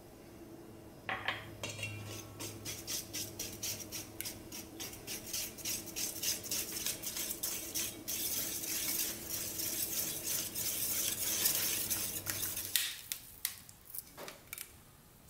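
A wire whisk beating flan custard in a bowl, its tines clinking rapidly against the bowl. The strokes become faster and denser in the second half, then stop near the end, leaving a few separate clinks.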